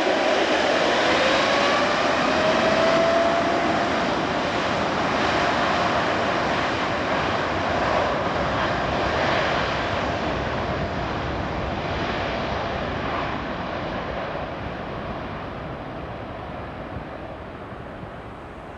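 Boeing 787-9's GEnx jet engines spooling up with a whine that rises in pitch over the first few seconds, then a steady jet noise that fades as the airliner moves away down the runway.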